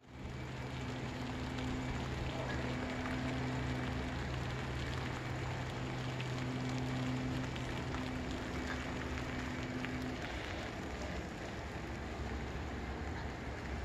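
Steady rain falling outdoors: an even hiss of rainfall with scattered drop ticks. Under it there is a low steady hum that fades out about ten seconds in.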